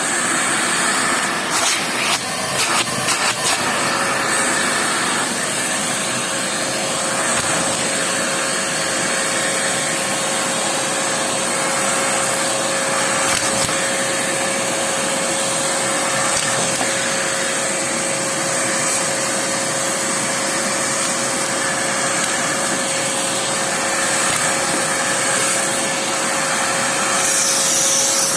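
Juro-Pro Allegra-A vacuum cleaner running steadily while sucking up chocolate, with a few sharp clicks in the first few seconds. A steady whine sets in about four seconds in.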